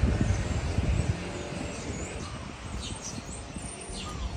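Outdoor ambience: a low rumble, loudest in the first second, under a steady hiss, with a few short high bird chirps now and then.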